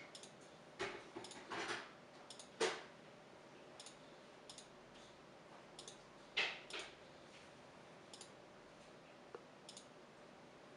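Computer mouse clicking at uneven intervals, in quick press-and-release pairs as the on-screen sliders are dragged. The two loudest clicks come about two and a half and six and a half seconds in.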